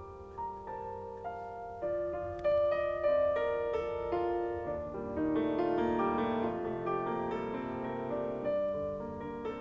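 Background piano music: a slow melody of single notes that fills out into fuller chords about halfway through.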